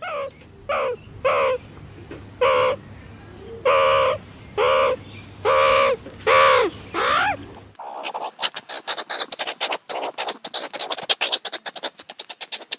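Meerkat giving a series of about ten short, harsh calls, several dropping in pitch at their end. About eight seconds in, the calls give way to a fast run of clicking chatter.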